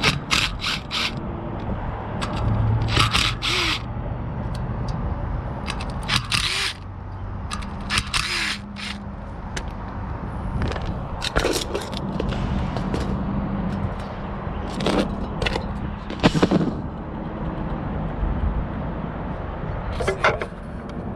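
Scattered clicks and short scrapes of hand work on wiring and small parts during a condenser fan motor replacement, over a steady low background hum.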